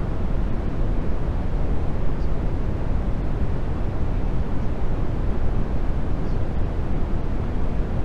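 Steady low rushing noise, strongest in the bass, with no rhythm or tune: the background noise bed of a subliminal audio track.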